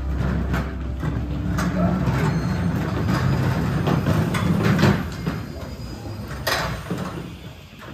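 Recorded train sound effect played over the hall's speakers: a rumbling train with scattered clacks that fades after about five seconds, then one sharp knock near the end.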